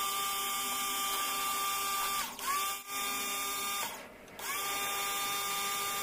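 Jet-pump pressure washer motor whining steadily while its spray gun cleans a window AC's blower. The whine winds down a little over two seconds in and starts up again a moment later, then stops and restarts once more about four seconds in.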